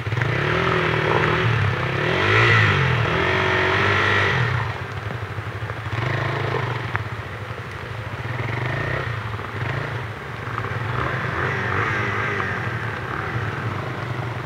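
Off-road trail motorcycle engine revving up and down under load while climbing a muddy slope. It is loudest for the first few seconds, then eases off and surges again twice.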